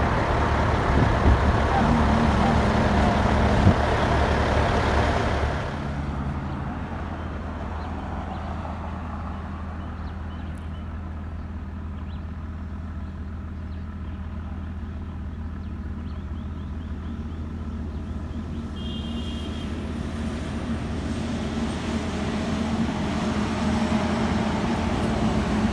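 Diesel dump trucks passing on a road: loud engine and tyre noise for the first five seconds, then an abrupt drop to a quieter, steady engine hum. The hum swells again near the end as a loaded tractor-trailer dump truck approaches.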